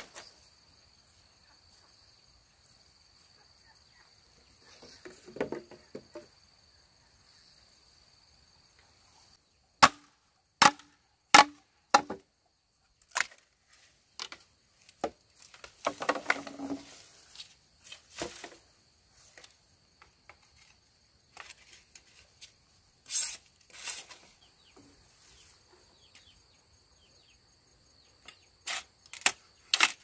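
Sharp knocks of wood being struck while a trellis is built, with a quick run of four strikes about ten seconds in and scattered knocks and rustling of handled material around them. A steady high insect trill runs underneath.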